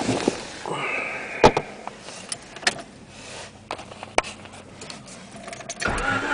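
Scattered clicks and knocks, one sharp knock about a second and a half in. Near the end a Honda Civic's D16Z6 engine begins to be cranked by the starter.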